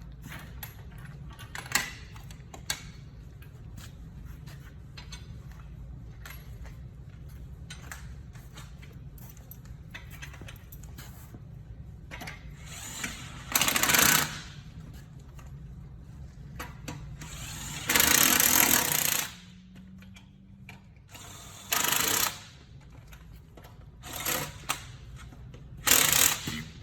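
A power tool running in five short bursts, each about a second long, with gaps of a few seconds between them, over a steady low hum.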